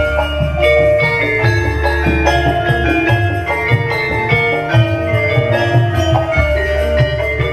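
Live instrumental music from a Javanese gamelan-style band: metal keyed mallet instruments play a melody over drums and a steady low bass.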